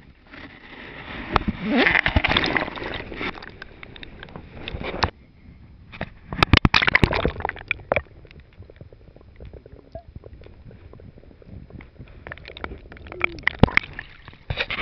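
Stream water splashing, sloshing and gurgling right at the microphone in three irregular bursts, as a hooked brown trout thrashes and the camera dips in and out of the water.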